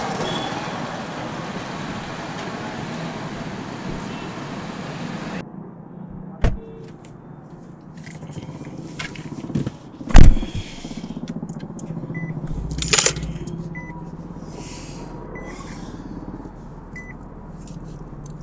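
Street and traffic noise around a parked car that cuts off abruptly, followed by quieter car-interior sounds. Inside the car there are two sharp thumps, the second one louder, along with keys jangling and small clicks of things being handled.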